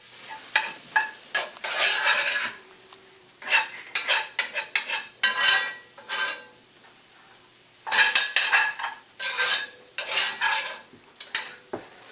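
A utensil stirring and scraping ground sausage and flour around a cast-iron skillet in bunches of quick strokes with clicks against the pan, over a light sizzle. This is the flour being cooked into the sausage fat before the milk goes in.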